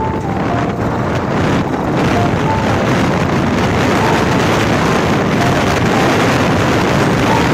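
Wind rushing over the microphone of a moving motorcycle, a loud, steady rush with engine and road noise underneath.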